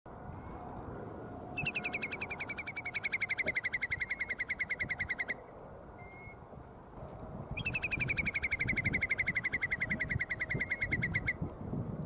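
Whimbrel calling: two long, rapid trills of whistled notes, each about four seconds long and falling slightly in pitch, a couple of seconds apart. A low wind rumble runs underneath.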